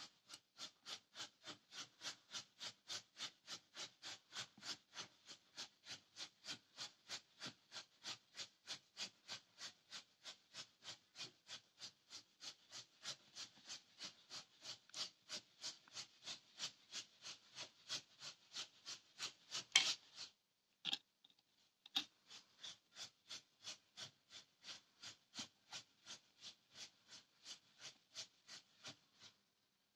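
Steady rhythmic scratching, about three short strokes a second. It breaks off after a sharper stroke about two-thirds of the way through, then picks up again.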